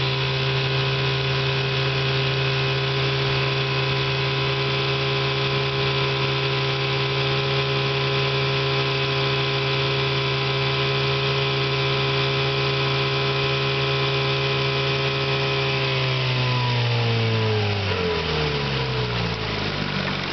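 1967 Johnson 6 hp two-cylinder two-stroke outboard motor running steadily at speed, then throttled down about four seconds before the end, its pitch falling toward idle. Freshly tuned up, it runs smoothly.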